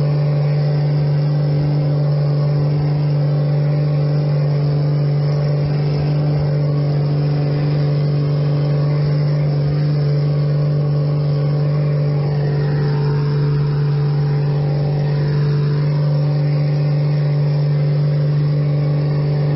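Steady engine drone at one constant low pitch that neither rises nor falls, cutting off abruptly at the end.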